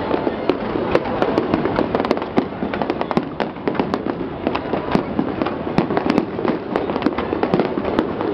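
Fireworks display going off: a rapid, irregular string of sharp bangs and crackles over a continuous rumble.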